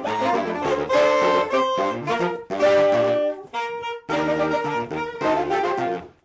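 Saxophone quartet playing a passage together in harmony, several saxophones sounding at once, with a short break about two-thirds of the way through and a stop right at the end.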